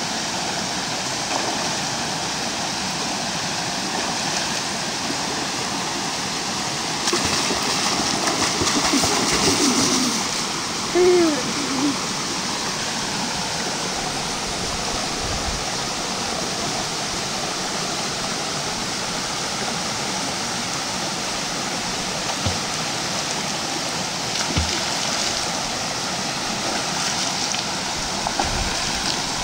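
Mountain stream rushing over rocks into a pool: a steady, even rush of water, a little louder for a few seconds about a quarter of the way in. A brief shout rises above the water about eleven seconds in.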